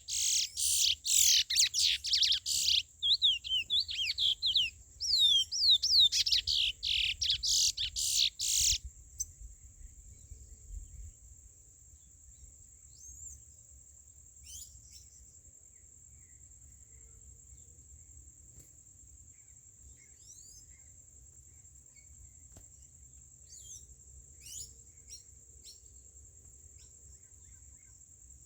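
Chestnut-bellied seed finch (curió) singing a loud run of rapid, sweeping whistled phrases, which stops about nine seconds in, leaving only a few faint scattered chirps. A steady thin high-pitched whine runs underneath throughout.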